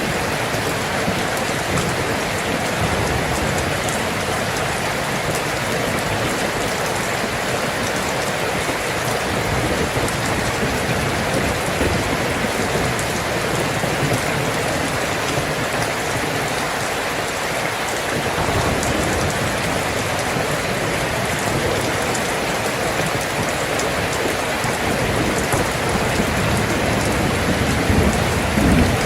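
Steady heavy rainfall, a dense even patter of raindrops on surfaces, with a low rumble of thunder beginning to swell near the end.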